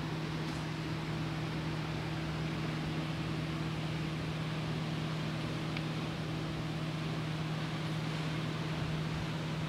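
A steady low mechanical hum over an even hiss, unchanging throughout.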